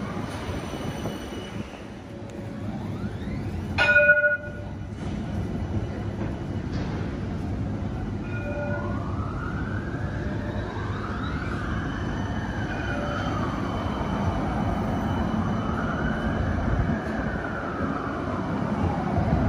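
Electric light-rail tram moving along the platform: its traction whine rises and falls in pitch several times over a steady running rumble. A short, loud bell-like chime sounds about four seconds in.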